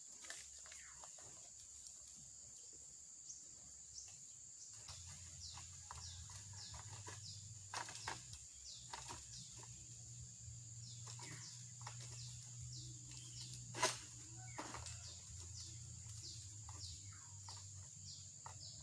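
Faint outdoor ambience of birds, with repeated short falling chirps over a steady high-pitched whine, and a faint low hum joining about five seconds in. A sharp knock about fourteen seconds in is the loudest sound.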